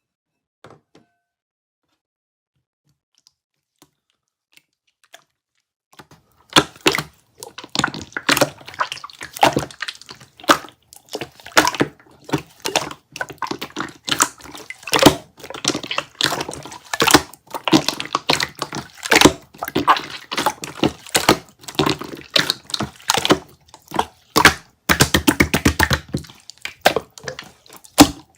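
Near silence, then from about six seconds in a dense, irregular run of crisp clicks, cracks and crunches, with a very fast rattle of clicks near the end, like chipping or chiselling at something brittle.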